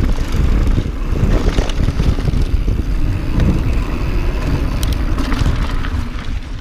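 Wind buffeting the microphone and a mountain bike's tyres rumbling over dirt and rock on a fast ride, with a few sharp rattling clicks about five seconds in. The noise eases near the end as the bike slows.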